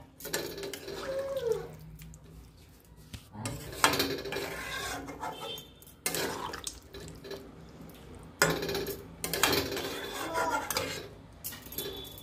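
Metal spatula stirring jackfruit curry in a metal kadai of watery gravy. It scrapes the pan and clanks against its side every two seconds or so.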